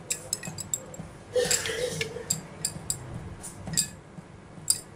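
Light, irregular clicks and clinks as raw onion rings are laid by hand over curry in a ceramic serving bowl.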